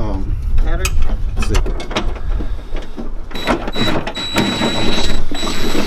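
Cordless drill with a socket driving the hood hinge bolts: a few clicks at first, then the motor whines in two short spurts and one longer run of nearly three seconds as a bolt runs in.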